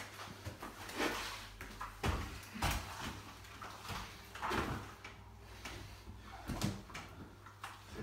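Plastering trowels sweeping over a fresh gypsum multi-finish skim coat on a wall: a string of short scraping swishes, some a second or less apart, with a few dull knocks.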